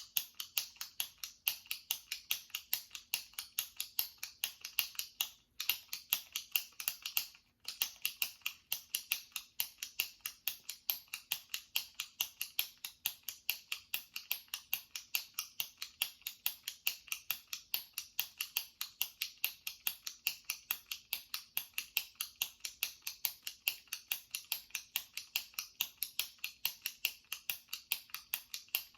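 Jumbo retractable pen clicking over and over as its top button is pressed: a rapid, even series of sharp plastic clicks, broken by two short pauses in the first eight seconds.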